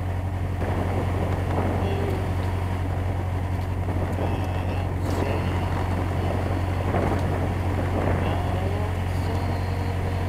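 Narrowboat's engine running with a steady low drone as the boat cruises along the canal.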